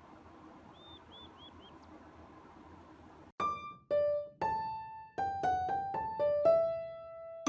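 Quiet room tone, then about halfway in a piano-like keyboard melody begins: single struck notes that ring and fade, about eight of them, one after another.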